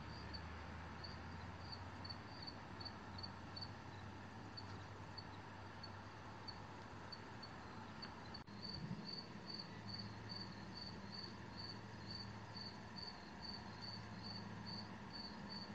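Faint insect chirping: short high chirps, scattered at first, then a steady run of about three a second through the second half, over a low steady hum.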